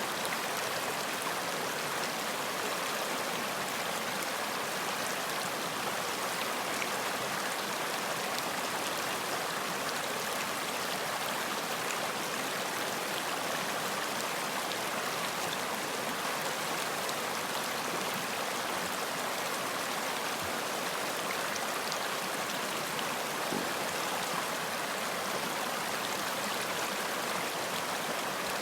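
Running water: a steady, even rushing of a stream with faint splashing ticks.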